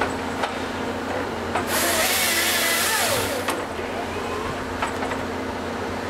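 Volvo EC210 excavator's diesel engine running steadily while its LogMax 7000XT harvester head works a eucalyptus log. A loud rushing, squealing noise of the head feeding and delimbing the log rises from about a second and a half in and stops about two seconds later, with a few sharp knocks.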